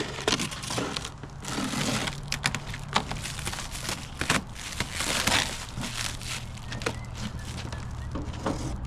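A cardboard box and its packaging being cut open with a sharp blade and pulled apart: repeated scraping slices, clicks and crinkling of cardboard and wrapping.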